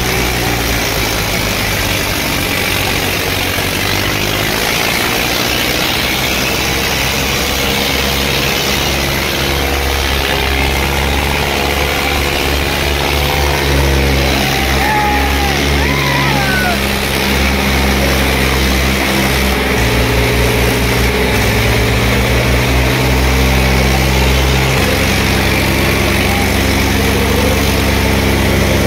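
Diesel tractor engines running steadily as two tractors hitched back to back pull against each other in a tochan tug-of-war, with crowd voices over them.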